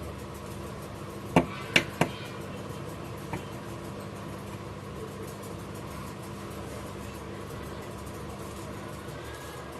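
Steady machine hum of a soldering rework station, with three sharp taps of metal tools on the phone board or bench about a second and a half in and a lighter tap a little later.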